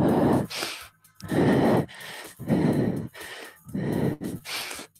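A woman breathing hard and fast, heavy exhales and inhales at about one a second, winded from burpees while holding a high plank.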